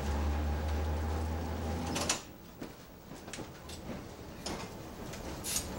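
Streetcar running with a steady low electric hum and a faint whine, which cuts off sharply with a click about two seconds in. The car then moves on quietly, with scattered light clicks and knocks.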